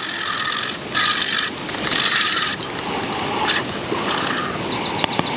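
Fixed-spool fishing reel being wound, a mechanical whirr that starts and stops in spurts of about a second.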